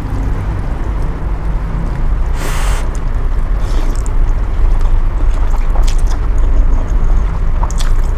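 A person slurping noodles from chopsticks, with two short slurps a little past the middle and a few small clicks later, over a steady low rumble.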